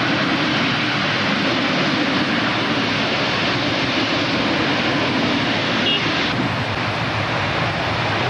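The Mirage volcano attraction erupting: a loud, steady rushing roar that thins a little after six seconds in.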